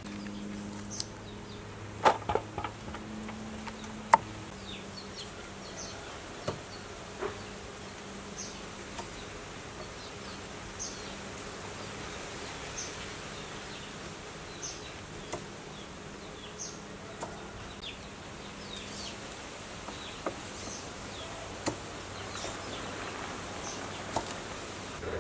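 A fly buzzing close by, its hum rising and fading as it moves about. Light sharp knocks and taps come from Chinese broccoli stalks being handled in a bamboo basket, a few of them near the start.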